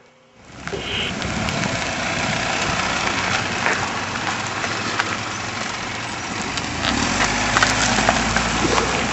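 A car running, coming up about half a second in: a steady, noisy rumble with scattered small clicks.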